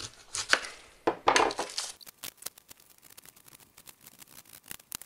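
Kitchen knife cutting an onion on a wooden chopping board: two longer slicing cuts through the onion, then, about two seconds in, a fast run of short knife taps on the board as it is diced finely.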